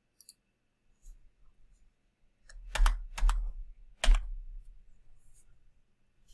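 Computer keyboard keystrokes: a few faint clicks, then three louder key presses about three and four seconds in, each with a dull thud.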